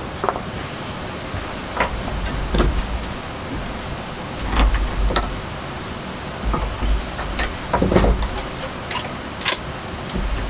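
Steady hiss of rain in a forest, with low wind rumbles on the microphone every couple of seconds and about ten scattered sharp ticks.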